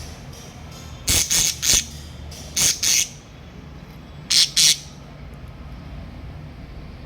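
Small pet parrots squawking loudly: seven short, harsh screeches in three quick groups of three, two and two.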